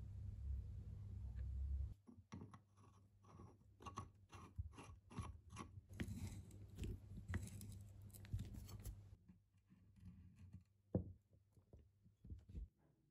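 Small metal parts of a hand-cranked drill being handled and fitted together: light clicks and taps about three a second, thinning to a few scattered clicks with one sharper click in the last few seconds. A low steady hum runs under the first two seconds.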